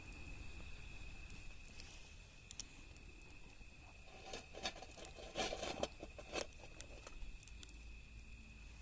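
Wood fire crackling, with scattered sharp pops and a denser flurry of crackles and rustling about halfway through, over a faint steady high tone.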